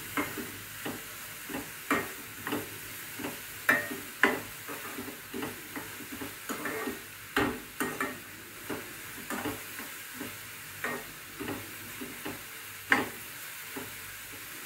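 Chopped onions frying in oil with a steady sizzle while a steel spoon stirs them in the pan. The spoon scrapes and clinks against the pan irregularly, with a few louder knocks.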